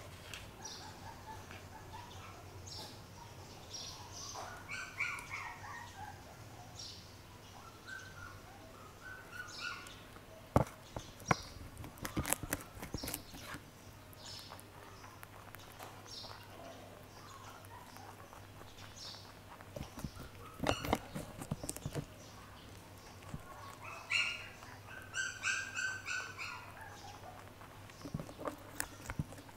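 A rabbit biting and crunching raw cauliflower close to the microphone, in clusters of sharp crisp crunches, with birds chirping in the background over a steady low hum.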